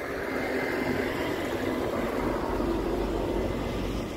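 Steady road and engine noise inside a moving car, with a low rumble that grows stronger about halfway through.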